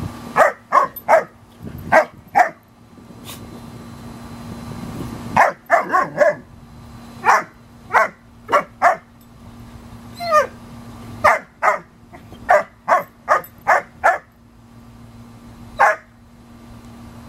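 German Shepherd puppy barking in play: short, sharp barks in quick clusters of two to four, with pauses between the clusters. About ten seconds in there is one falling yelp.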